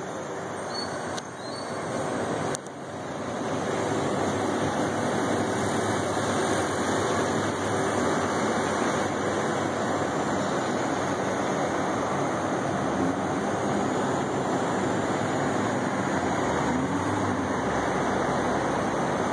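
Steady hum of distant city traffic heard from high up. There is a click about two and a half seconds in, and after it the traffic noise comes through louder and holds steady.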